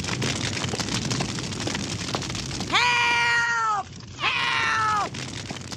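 Two long, drawn-out wailing cries, each about a second long and falling in pitch at the end, over a steady crackling of fire.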